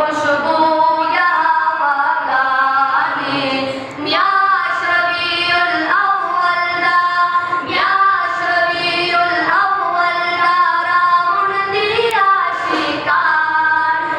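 A high voice singing a Pashto naat into a microphone, in long melodic phrases that break briefly about every four seconds.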